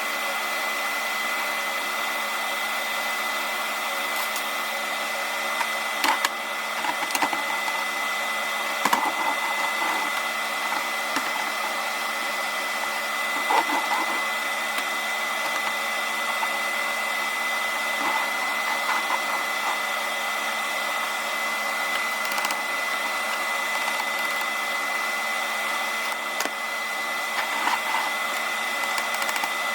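Welding arc running steadily on LS motor mount parts: an even hiss with a constant thin high tone, broken by a few brief clicks.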